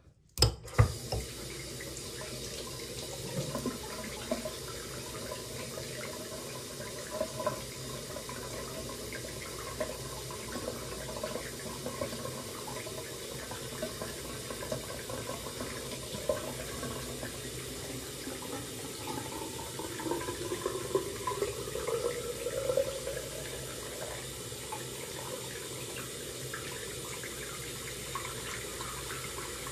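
Water running steadily from a tap, after a couple of sharp knocks about half a second in.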